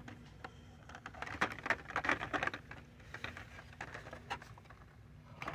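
Hot Wheels blister packs, plastic bubbles on cardboard cards, clicking and crackling as they are flipped through and pushed along their pegboard hooks: irregular light clicks, busiest about a second or two in. A faint steady hum runs underneath.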